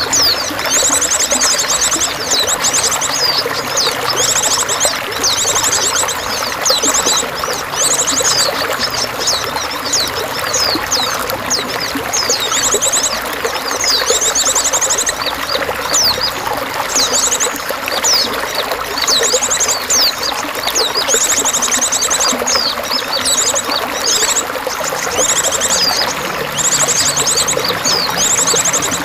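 Continuously pouring, trickling water with songbirds calling over it: short, fast, high trills repeated every few seconds, mixed with quick sweeping chirps.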